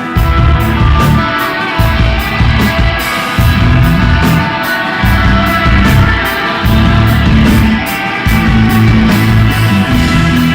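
Live psychedelic desert-rock jam from a band, heard at full volume. Electric guitar holds ringing, sustained notes over a heavy bass line that shifts pitch every second or so, and the drums keep a steady cymbal beat at about three to four strokes a second.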